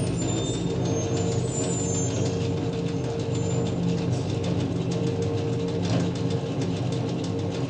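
Conveyor belt running with a steady mechanical hum, short high squeaks over the first few seconds, then rapid clicking and knocking in the second half, with a heavier knock about six seconds in.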